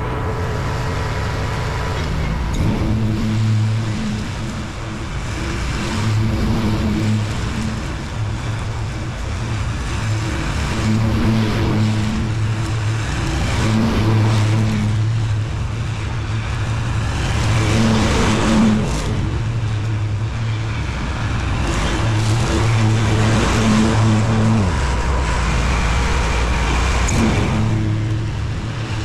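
Lawn mower engine running steadily, its low hum rising and falling every few seconds as the load changes.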